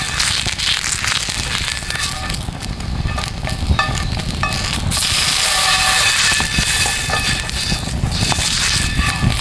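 Beef fat sizzling as a cube of it is rubbed around a hot iron frying pan over a campfire, rendering fat to grease the pan. Sharp crackles come from the wood fire, and the hiss swells about five seconds in.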